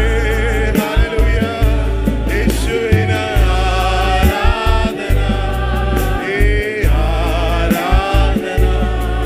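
Christian worship music: voices singing a gospel song over a band with a steady bass and regular drum beats.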